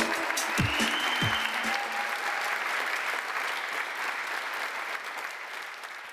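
Audience applauding, fading steadily away.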